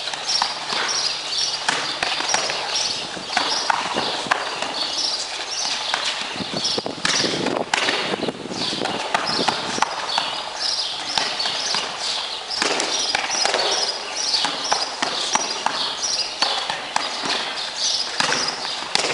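Sparring strikes and footwork on pavement: repeated thuds and slaps of punches landing on gloves and pads, with scuffing steps. A rapid high chirping runs on behind them throughout.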